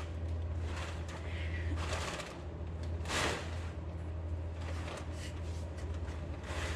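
Hands rummaging: a series of short scraping and rustling sounds, the loudest about three seconds in, over a steady low hum.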